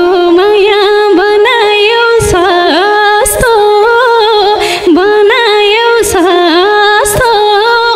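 A woman singing a Nepali folk song into a microphone: one long, ornamented vocal line whose pitch bends, wavers and slides around the same few notes.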